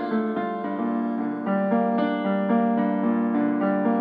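Digital piano being played: chords and melody notes struck at an even, unhurried pace, each left to ring into the next.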